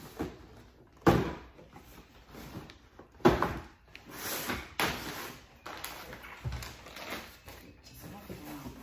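A cardboard box full of plastic-wrapped parcels being handled and lifted: two sharp thumps about one and three seconds in, with crinkling of plastic packaging and scraping of cardboard in between.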